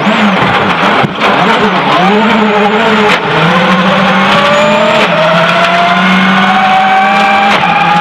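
Ford Focus WRC's turbocharged four-cylinder rally engine at full throttle, heard from inside the car. It snaps up through quick gear changes about one, three and five seconds in, then pulls in a long slow climb in a high gear, with steady gravel and road noise underneath.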